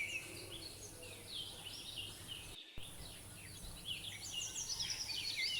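Several wild birds chirping, with many short quick notes that rise and fall, over a steady high-pitched background hiss; the sound drops out completely for a moment about two and a half seconds in.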